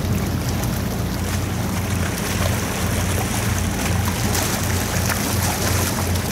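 Low, steady drone of a large car carrier's engines as the ship moves under way, mixed with wind and water hiss.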